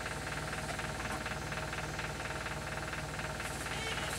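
Steady mains hum with a fast, even buzz, from electrical equipment running in the workshop.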